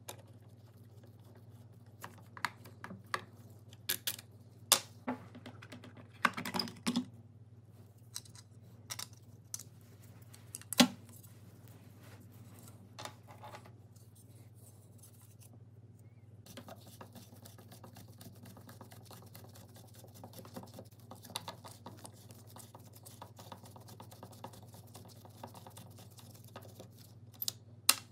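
Screwdriver and gloved hands taking apart the plastic handle of a Makita 6013B drill: scattered clicks and knocks of plastic and metal parts, then, from about halfway, a long run of fine rapid scratchy ticking, with one sharp click near the end.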